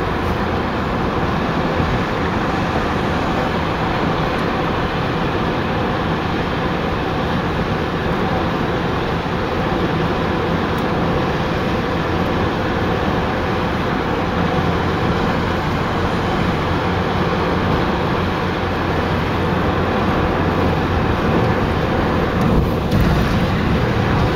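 Steady road noise inside a moving car at highway speed: tyres on the pavement and engine hum.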